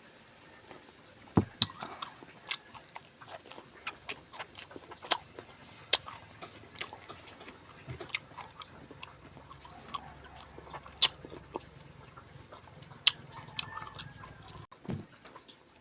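Close-up eating sounds of a person chewing kinilaw, vinegar-cured raw fish and squid, with irregular sharp lip smacks and mouth clicks, a few of them loud.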